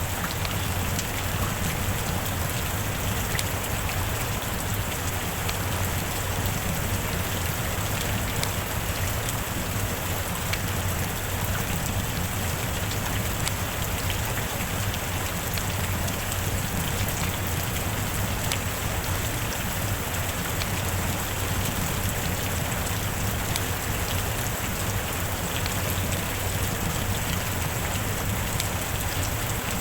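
Heavy rain falling steadily: an even, unbroken hiss with scattered individual drop ticks.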